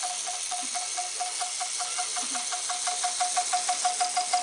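Homemade tin-can steam car hissing steadily as steam escapes, with a pulsing whistle-like tone over it, about six pulses a second, that grows louder about three seconds in as pressure builds.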